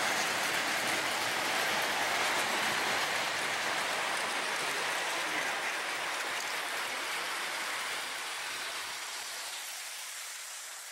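O gauge model trains running on three-rail track: a steady rushing whir of wheels on metal rails that eases off over the last few seconds.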